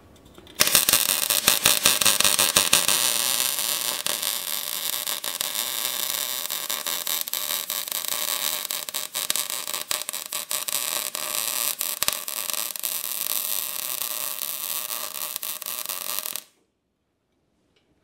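Wire-feed welding arc on steel: a steady crackling hiss that starts about half a second in and cuts off suddenly near the end as the weld is finished.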